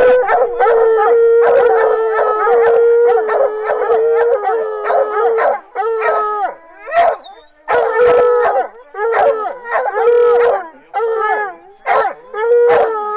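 Bear hounds baying from a truck's dog box, several voices overlapping in long howls, breaking into shorter bawls from about five seconds in. The dogs have struck: they are baying at a bear's scent.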